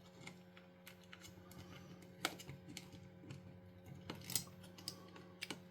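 Faint, scattered clicks and taps of plastic game-controller parts being handled as the board and cable are fitted back into the case, over a steady low hum.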